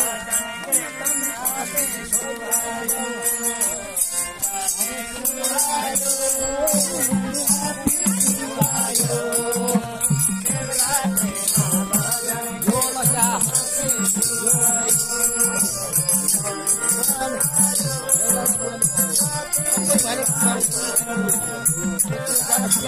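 Hindu devotional bhajan-kirtan: voices singing together over a fast, even rattling and jingling percussion beat.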